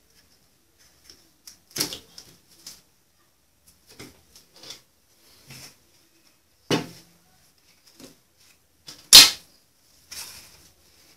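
Handling sounds: a series of separate knocks, taps and clicks as a plastic glue bottle and a cardboard drum are picked up, tipped and set down on a glass tabletop. The loudest is one sharp knock about nine seconds in.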